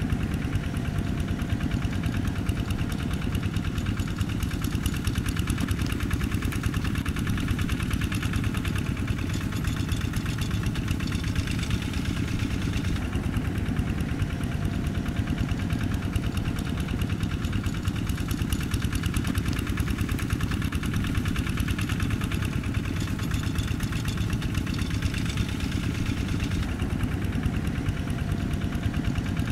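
Quick G1000 two-wheel hand tractor's single-cylinder diesel engine running steadily under load, with a fast even chugging, as the tractor works through wet mud.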